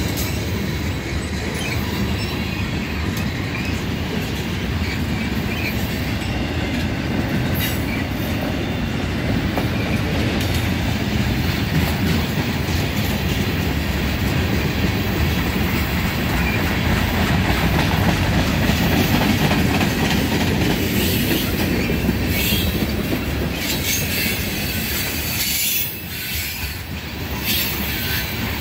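Freight train of tank cars rolling past at close range: a steady rumble of steel wheels on the rails, with sharper clacks from the wheels and couplings in the last few seconds.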